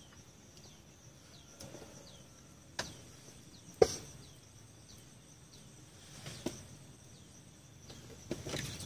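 Quiet outdoor ambience: a steady high insect drone, a bird repeating short falling chirps, and a few sharp clicks, the loudest about four seconds in.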